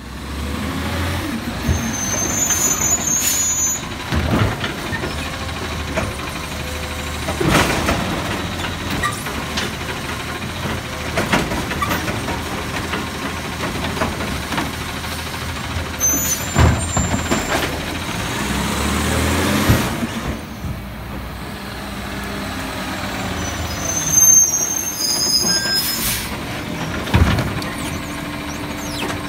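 A 2018 Peterbilt 520 garbage truck with a Labrie Automizer automated side-loading arm works the curb. Its engine runs steadily, and its air brakes hiss with a high squeal three times. Several sharp clanks and bangs come as the hydraulic arm grabs, lifts and dumps wheeled carts.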